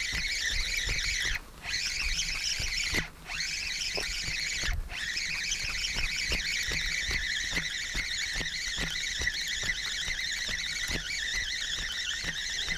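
Spinning reel cranked to retrieve a hooked fish: a steady high whirring rattle that stops briefly three times in the first five seconds, then runs on.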